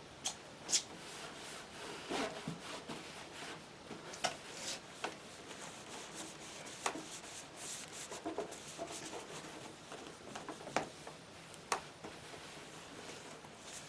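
Paper towel damp with multi-surface cleaner rubbing and scrubbing the plastic casing of a CRT monitor, in uneven strokes with scattered sharp clicks and squeaks.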